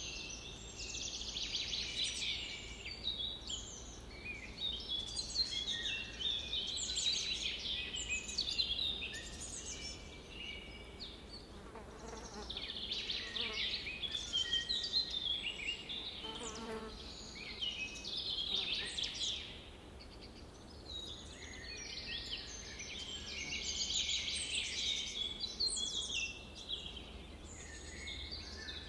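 A chorus of many small birds chirping and twittering together, overlapping high calls that swell and ease in waves every several seconds.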